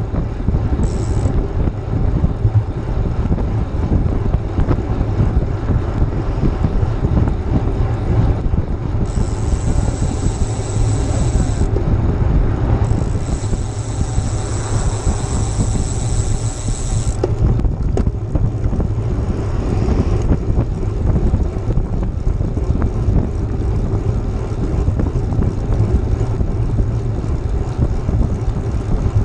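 Wind buffeting the microphone of a bicycle-mounted GoPro at riding speed: a loud, steady low rumble, with a thin high hiss that comes in twice for a few seconds near the middle.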